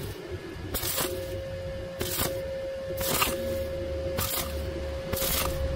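Stick welding arc on thin square steel tube, struck and broken in five short bursts of hiss about a second apart: intermittent arcing that lets the thin wall cool between dabs so it does not burn through. Background music with a steady held tone runs underneath.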